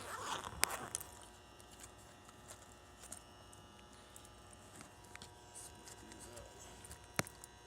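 Handling noise from getting a multimeter out: a rustle and a sharp click about half a second in and another sharp click near the end, over a faint steady hum.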